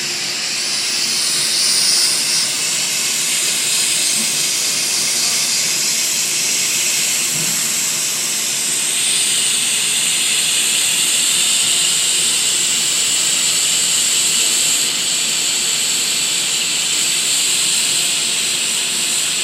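Hot-air plastic welding gun blowing zero air, a purified compressed gas used here in place of nitrogen, in a loud steady hiss. The hiss changes character about nine seconds in.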